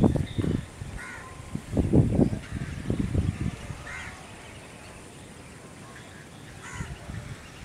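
Crows cawing now and then, a few short calls scattered through. Low rumbling bursts, the loudest sound, come and go in the first half.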